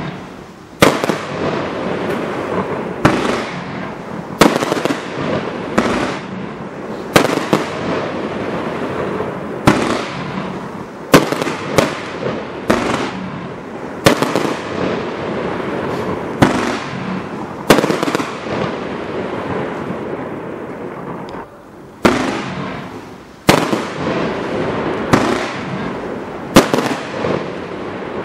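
Gemstone 'Unforgettable' 168-shot compound firework cake firing: sharp bangs about every second or so as shells burst, with continuous crackling in between and a longer gap of about four seconds just past the middle.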